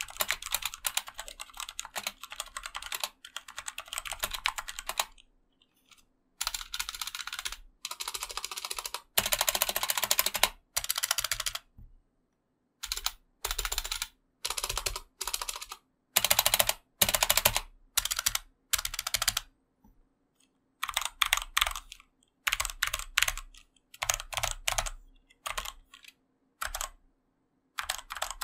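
Typing on an AJAZZ AK33 75% mechanical keyboard with black linear switches: fast runs of clicking keystrokes in bursts a few seconds long, separated by short pauses.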